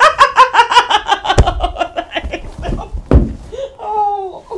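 A woman laughing hard: a long run of rapid 'ha-ha' pulses, falling in pitch, broken by two dull thumps about a second and a half and three seconds in. The laughter dies down near the end.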